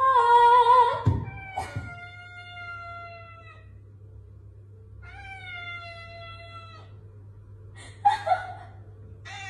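A tabby cat giving long, drawn-out meows, two of about two seconds each, each falling slightly in pitch, in answer to a loud held vocal note from a woman at the start. A short rough burst of sound comes just before another call near the end.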